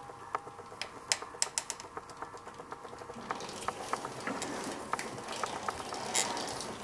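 Bicycle crank turning with a run of sharp, irregular clicks, joined by a steady whirring rush about halfway through. The clicking is the periodic noise the owner suspects comes from the bottom bracket.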